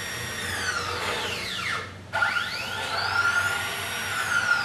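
Stepper motors of a home-made CNC milling machine driving an axis in fast traverse moves. The whine rises in pitch as the axis speeds up, holds steady, then falls as it slows. One move ends just before two seconds in, and a second starts right after and begins slowing near the end.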